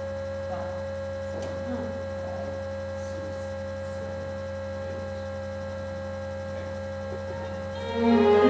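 Steady electrical mains hum with a few faint knocks and rustles. Near the end the orchestra's strings (cellos and violins) start playing again.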